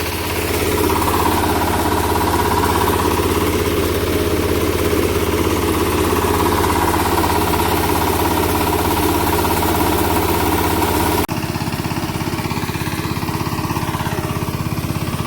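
Small engine of a paddy harvesting machine running steadily. Its sound changes abruptly about eleven seconds in.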